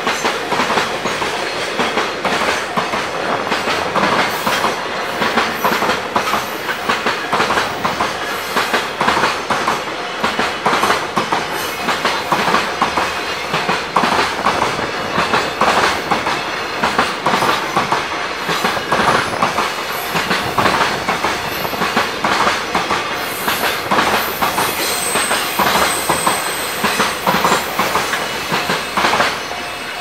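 Long freight train of container and tank wagons rolling past close by, its wheels clicking steadily over rail joints. The sound eases slightly near the end.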